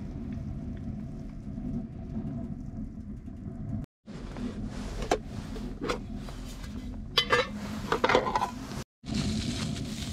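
Clicks and metal clatter of an aluminium mess tin being handled and its lid opened: two sharp clacks about halfway, then a louder rattling clatter near the end, over a steady low rumble.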